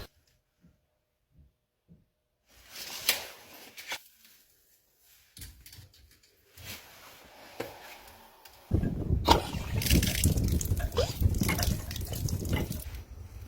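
Water from an outdoor frost-free hose bib: scattered drips and splashes, then a steady run of water with clicks from about nine seconds in.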